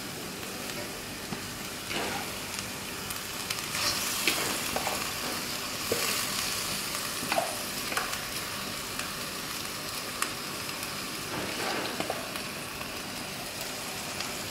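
A wok of chili spice paste with tofu and a little water sizzling steadily as soaked rice vermicelli goes in, a little louder in the middle. A few light knocks and scrapes sound in the pan.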